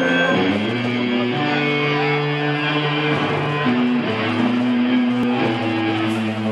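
Live rock band on an amplified club PA: electric guitar playing long held notes that change pitch every second or two.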